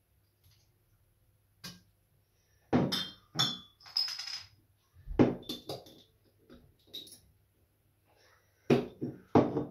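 Empty glass beer bottles clinking and knocking against one another as they are picked up, handled and set down: a series of irregular sharp clinks, some with a short glassy ring, bunched in quick pairs.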